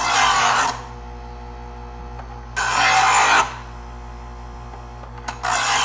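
Presto EverSharp electric knife sharpener's motor running with a steady hum while a knife blade is drawn through its medium grinding stage three times, each pass a short rasping grind of under a second.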